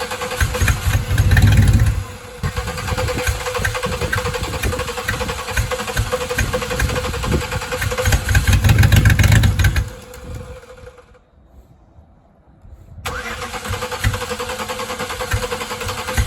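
A starter cranking a high-mileage car engine that is struggling to start, with two louder, deeper surges along the way. The cranking stops about ten seconds in and starts again abruptly about three seconds later.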